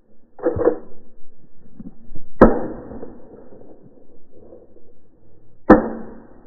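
Shotgun shots at flying geese: a duller report about half a second in, then two sharp, louder blasts about two and a half and nearly six seconds in.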